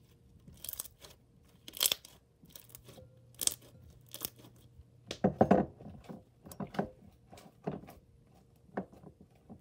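Stiff, slightly overactivated slime with foam beads being stretched, squished and pressed into a glass bowl by hand: a run of irregular sticky crackles and tearing pops, loudest in a cluster about five seconds in.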